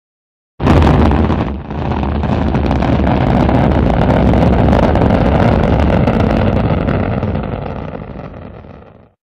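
Rocket engine roar, a sound effect for an upper-stage engine firing: it starts suddenly under a second in, dips briefly, runs steadily with a deep rumble, then fades and cuts off near the end.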